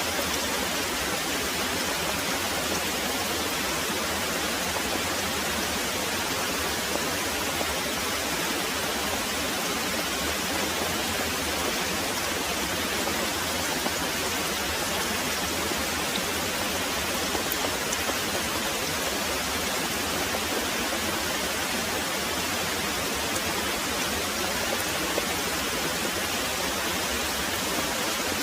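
Very heavy rain pouring steadily, a dense, even hiss with no breaks.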